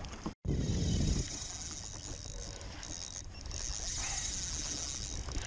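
Shimano Sahara 1000 spinning reel's drag buzzing as a hooked fish pulls line off, over wind noise on the microphone. The high buzz starts about a second in and dips briefly midway.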